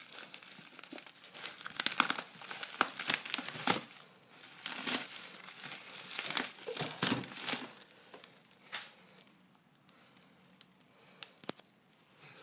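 Bubble wrap and plastic packing being handled and pulled apart by hand, crinkling and crackling in bursts for about eight seconds, then quieter with only a few single clicks.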